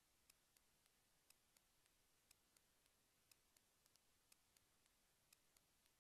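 Near silence, with very faint regular ticking, about four ticks a second with a stronger tick once each second.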